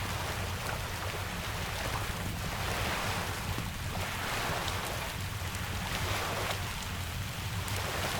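Steady rain with a deep low rumble, its hiss swelling and easing every second or two like surf, with a few faint fire crackles.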